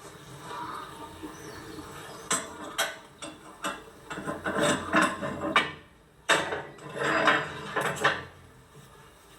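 Cookware and utensils clattering: a string of sharp clinks and knocks with stretches of scraping, as pots, dishes and spoons are handled.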